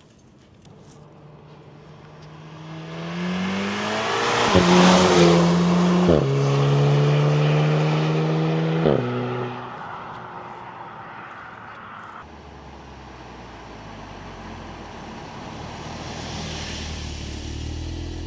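Audi TTS Mk3's turbocharged 2.0-litre four-cylinder accelerating hard past. It pulls through the gears with three quick S-tronic dual-clutch upshifts, the engine note rising in each gear and dropping sharply with a short crack at each shift, then fading into the distance.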